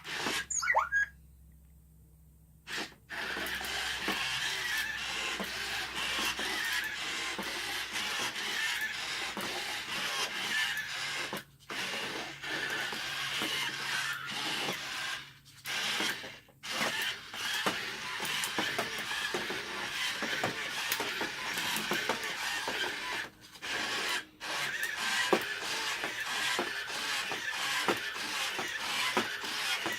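WowWee Roboquad toy robot's geared leg motors whirring and clicking as it walks, fast and continuous with a few brief pauses, running on its four freshly replaced gears. A short chirp sounds about a second in, before a near-quiet gap.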